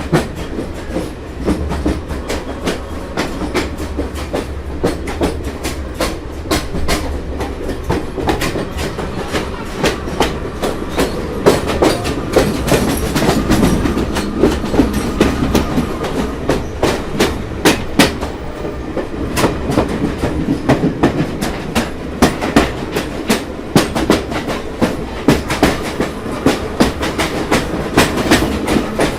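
Train passing at speed close by: a continuous low rumble with wheels clacking in quick succession over the rail joints.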